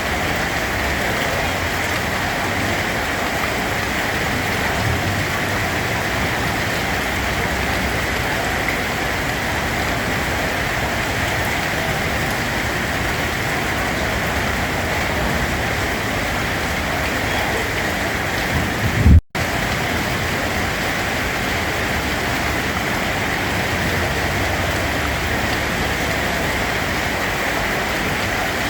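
Steady rain falling, an even hiss of drops on a surface. About two-thirds through there is a brief low thump and the sound cuts out for a split second before the rain carries on.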